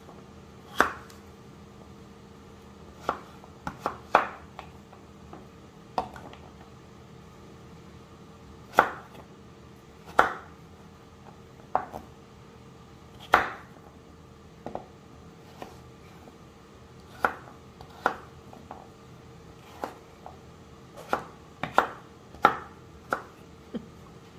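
Kitchen knife chopping raw butternut squash on a wooden cutting board: irregular sharp knocks of the blade through the flesh onto the board, roughly one a second, sometimes two in quick succession.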